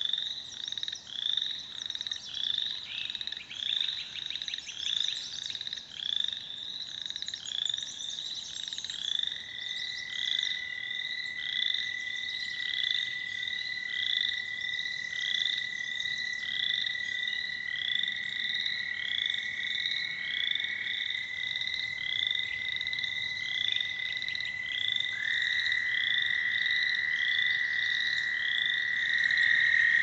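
Chorus of American toads giving long, steady, high trills that overlap and hand over to one another, louder near the end. Above them, a rapid series of short repeated chirps from other frogs runs without a break, about one and a half a second.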